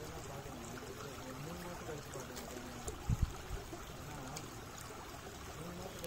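Shallow creek flowing and trickling over pebbles and rocks, with faint voices underneath and a brief low bump about three seconds in.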